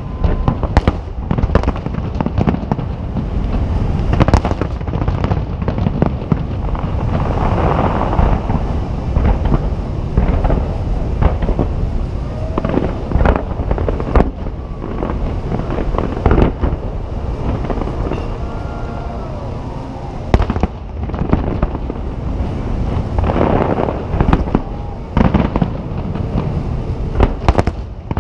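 Nagaoka aerial firework shells bursting in quick succession: an irregular string of sharp bangs over a continuous low rumble.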